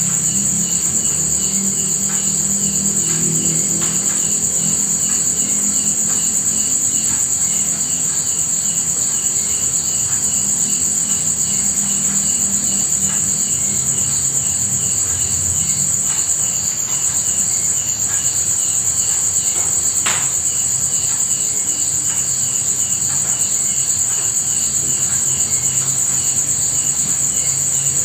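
Night insects trilling in one continuous high-pitched drone, with a second, lower chirp repeating at a steady even rhythm and a faint low hum beneath.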